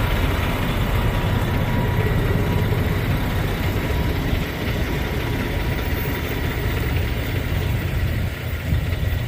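Semi-truck diesel engine idling: a steady low rumble.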